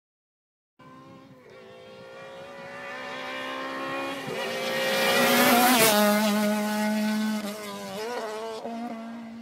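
Peugeot 206 rally car driven at speed on a tarmac stage: the engine note grows louder as it approaches, is loudest about six seconds in as it passes, with the pitch dropping, then fades as it goes away.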